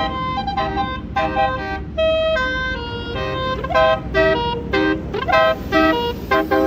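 A bus's basuri horn playing a quick melody of short tooting notes, a couple of them sliding upward, over the low rumble of the bus.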